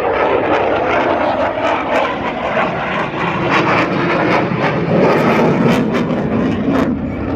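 Loud, steady roar of military jet aircraft flying overhead.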